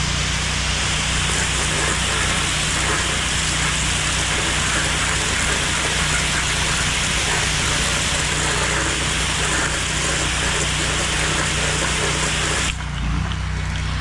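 Pressure washer spraying: a steady hiss of the water jet on the gutters over the machine's running engine. Near the end the spray cuts off suddenly while the engine keeps running.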